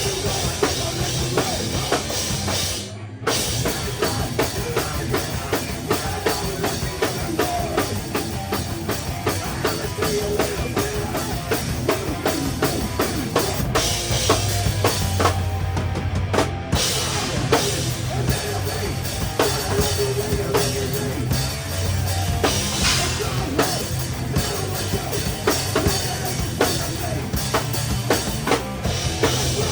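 A live rock band playing, with the drum kit loud and close: kick drum, snare and cymbals driving the song. The band breaks off for a moment about three seconds in and again about halfway through.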